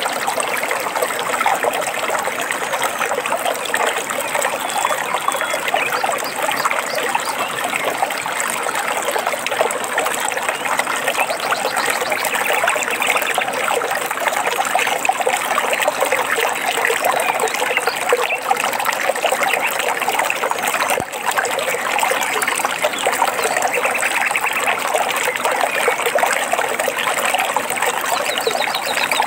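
Stream water trickling and babbling over stones, a steady unbroken rush.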